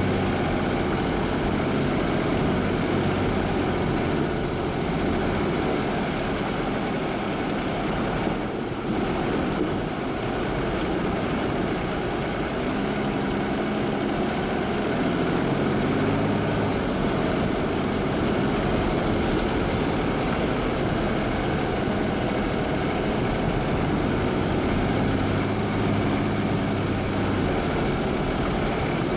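Jeep's engine running steadily with road noise, its low hum shifting in pitch a few times, with a brief dip about eight seconds in.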